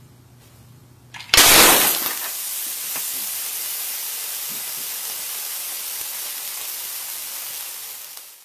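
A pane of tempered glass shatters from thermal shock over a hot glass-ceramic cooktop: one sudden loud crash a little over a second in, then a steady hiss with scattered faint clinks.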